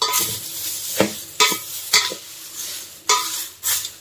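A metal spoon stirring dry-roasted lentils, spices and curry leaves in a stainless steel bowl. The grains rattle and the leaves rustle, with about six sharp scrapes and clinks of metal on metal, some ringing briefly.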